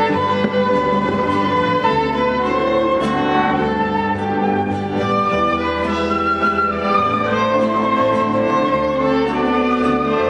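Small string ensemble of violins, viola and cello playing a piece together, with sustained bowed notes and a melody moving steadily over held lower parts.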